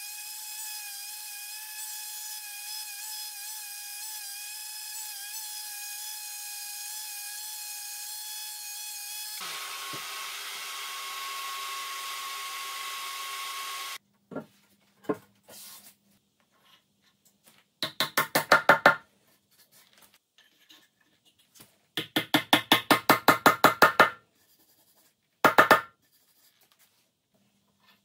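Varis random orbital sander with a dust-extraction hose running steadily, its tone changing about nine seconds in, then stopping suddenly. After a pause come three rapid runs of loud, sharp knocks, several a second, louder than the sander.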